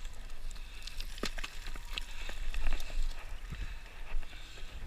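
Boots and hands scrambling over loose rock and gravel on a steep climb: irregular clicks, knocks and scrapes of stones, over a steady low rumble.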